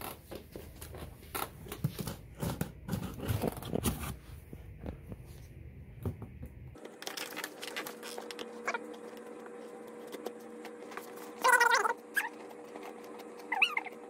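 Scissors scraping and snipping along packing tape on a cardboard carton, with rustling and small clicks. About seven seconds in this gives way abruptly to a steady hum with a few short wavering high sounds.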